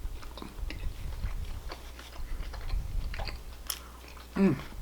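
Close-miked mouth sounds of someone chewing a bite of burger: irregular wet smacks and small clicks, with a short hummed "mm" near the end.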